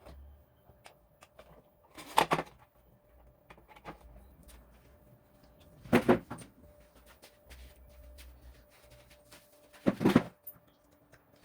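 Three short handling noises on hard parts, each under half a second and about four seconds apart, over a faint steady hum.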